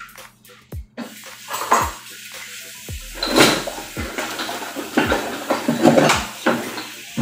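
Kitchen handling noises, rustling with a few louder bursts of clatter, over background music with a steady beat of about one low thump a second.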